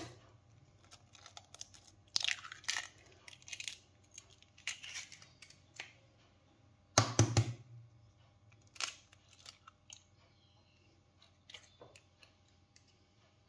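Eggs being cracked into a ceramic bowl. The loudest sound is a sharp crack of shell about seven seconds in, with softer crackling of shell being pulled apart before and after it.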